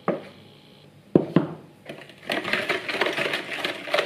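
A metal spoon stirring flour into batter in a plastic mixing bowl. Two sharp knocks come about a second in, then about two seconds in it turns into a rapid, busy run of scraping and clicking against the bowl.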